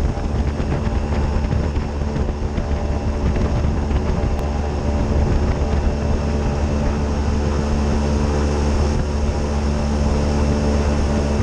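Airboat's 383 stroker V8 engine and propeller running steadily while the boat is underway, a loud, unbroken drone with a strong low hum.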